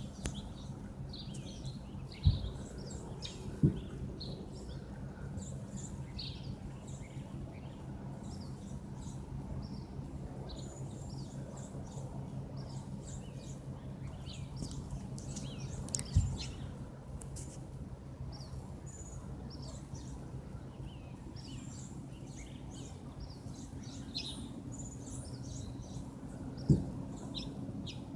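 Small birds chirping, over a steady low drone from a police helicopter flying past at high altitude. Four sharp knocks.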